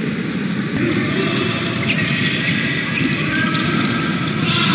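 Steady crowd and court noise in an indoor sports hall during a handball match, with a few short high squeaks in the second half.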